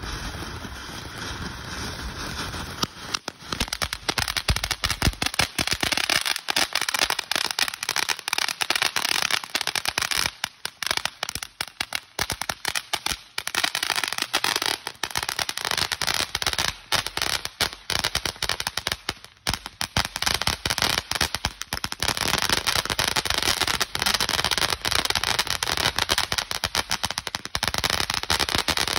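Phantom Fireworks Cosmic Velocity ground fountain spraying sparks. A steady hiss gives way, about three seconds in, to dense, rapid crackling that runs on with a few short lulls.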